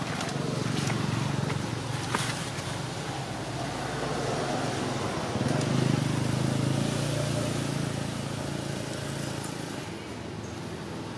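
Background motor traffic: a low engine hum that swells to its loudest about five to seven seconds in and then eases off, with a few faint clicks about two seconds in.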